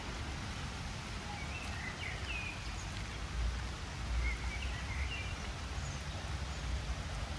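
Rainy outdoor ambience: a steady wash of rain noise over a low rumble that swells briefly around three and four seconds in, with a few short bird chirps about two seconds and five seconds in.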